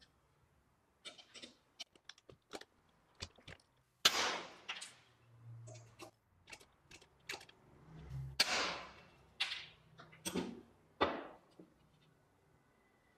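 Hand pop-rivet tool setting pop rivets: the handle is squeezed repeatedly with light clicks, and several sharp snaps, the loudest about four seconds in, as the rivet mandrels pull up and break off.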